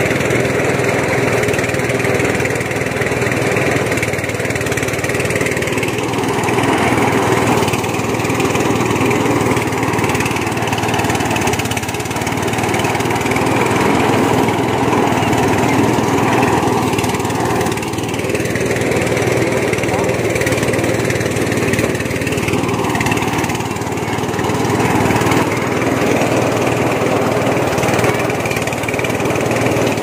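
Engine of rice-harvesting machinery running steadily, its note dipping and rising slightly every few seconds.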